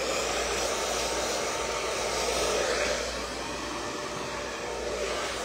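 Handheld hair dryer blowing: a steady rush of air, a little softer after about three seconds.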